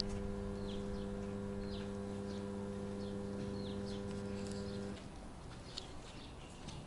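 Small birds giving short, high, falling chirps every second or so over a steady low hum. The hum stops abruptly about five seconds in.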